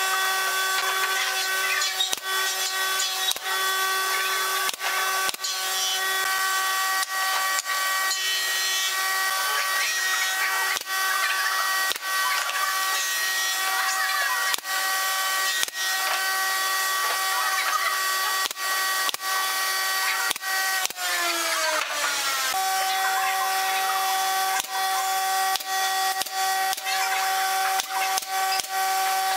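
Pneumatic nail gun firing again and again into pine boards, dozens of sharp shots in quick succession. Behind it runs a steady hum of several tones that slides down in pitch about three-quarters of the way through, then holds steady again.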